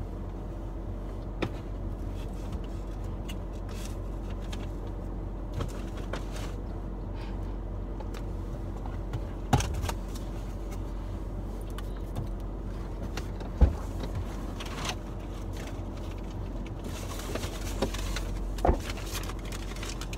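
Steady low hum of a car cabin with the engine running, with a constant drone from the climate fan. A few sharp knocks and clicks cut across it, the loudest about nine and a half and fourteen seconds in.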